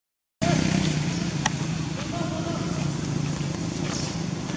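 A steady low motor rumble that cuts in after a brief silence, with a sharp click about a second and a half in.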